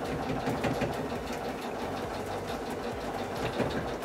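Electric sewing machine running steadily, stitching a quarter-inch seam through a quilt block where several seam allowances are stacked up.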